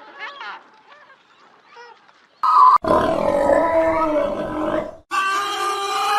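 Animal calls: faint chirping at first, then, after an abrupt cut, a loud call, and about five seconds in, after a short break, a long, steady call.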